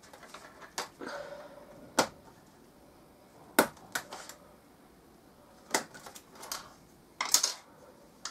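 Sharp clicks of small plastic model-kit parts being snipped off the sprue and handled on a cutting mat, about half a dozen spread through, some in quick pairs, with soft rustling between.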